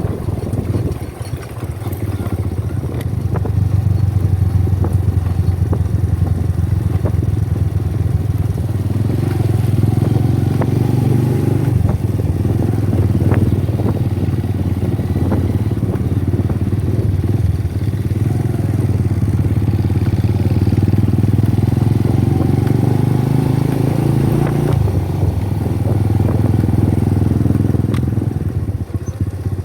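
A small engine running steadily under way, with a rattling edge; its note shifts about three-quarters of the way through.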